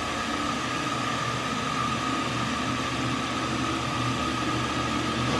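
Steady ventilation noise in an empty room: an even rushing hiss with a steady high whine running through it.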